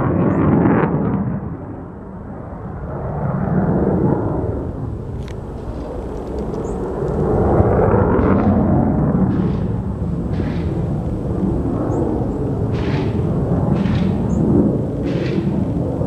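Aircraft flying overhead at an air show, a loud low rumble that swells and fades several times.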